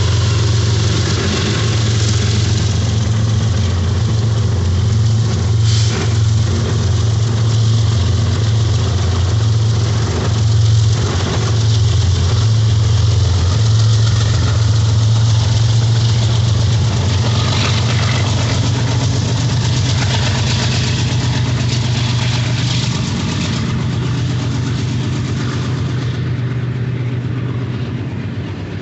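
Diesel locomotives of a BNSF freight train working past: a loud, steady, deep engine drone with a few sharp clanks from the wheels and cars. It fades a little near the end as boxcars follow the locomotives.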